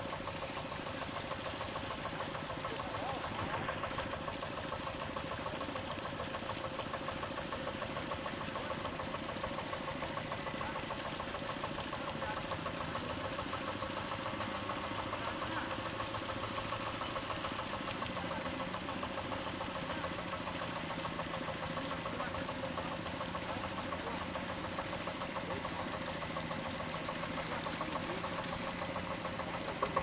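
Two-wheel hand tractor's single-cylinder diesel engine running steadily at an even speed.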